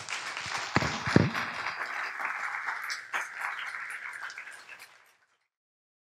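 Audience applauding, with two low thumps about a second in; the applause fades out after about five seconds.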